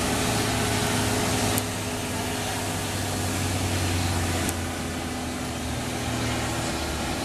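A motor engine running steadily, with a low hum; it eases off slightly about a second and a half in.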